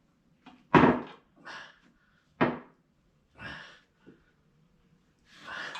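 Knocks and clunks of work on a grader blade in a garage: two loud sudden knocks about a second and a half apart, with softer clunks between and after.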